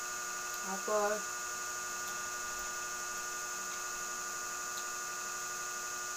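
Steady electrical hum with several fixed tones, low and high, laid over each other at an even level. One short spoken word comes about a second in.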